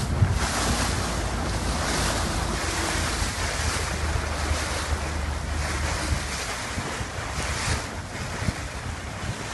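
Wind buffeting the microphone over choppy sea, with water washing and splashing. A low, steady motorboat engine hum runs underneath.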